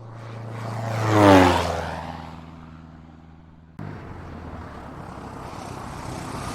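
A propeller airplane flying past. It swells to a loud peak about a second in and drops in pitch as it goes by, then fades away. Just under four seconds in, it cuts suddenly to another steady engine sound that slowly grows louder.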